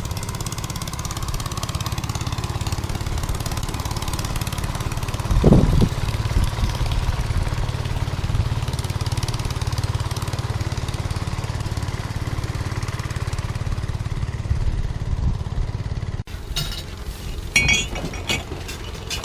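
A small engine running steadily with a low rumble. There is one loud thump about five seconds in. The engine sound cuts off abruptly near the end and is followed by a few sharp clicks and clatter.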